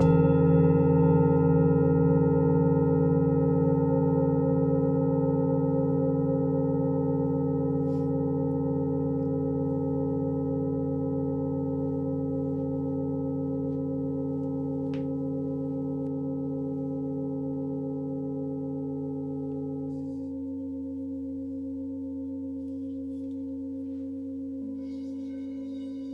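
Several crystal singing bowls ringing together in long, steady, overlapping tones, struck just at the start and then fading slowly. A few of the tones stop about 20 seconds in. A fresh, higher ring begins near the end as another bowl is sounded.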